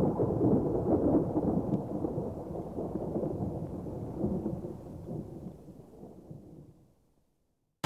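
Deep rumbling noise, loudest at the start, fading slowly away to silence about seven seconds in.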